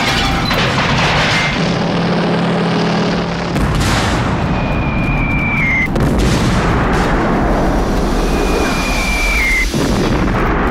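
War-film battle sound effects: explosions over a continuous heavy rumble. Twice a high whistle drops in pitch and cuts off into a sudden blast, about six seconds in and again near the end.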